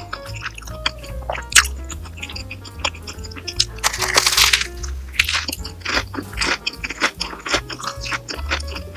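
Background music with a steady bass line, over crisp crunching of food being bitten and chewed, with a louder, longer crunch about four seconds in.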